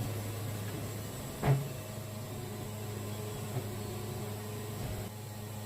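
Portable band sawmill running steadily while its blade cuts through a tight-grained yellow pine log, with one short thump about a second and a half in.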